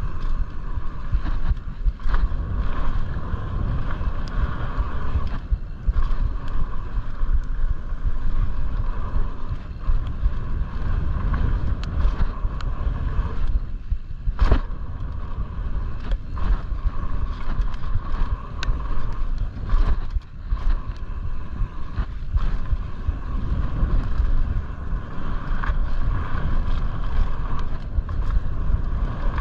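Mountain bike rolling fast down a dirt trail: wind buffeting the microphone and tyre noise, with scattered knocks and rattles from the bike over bumps. A steady higher hum runs through it and drops out briefly a few times.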